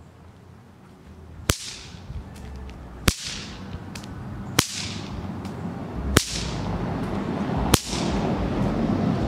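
Five sharp whip cracks, evenly spaced about a second and a half apart, from a whip tipped with a thin Dyneema-fibre popper.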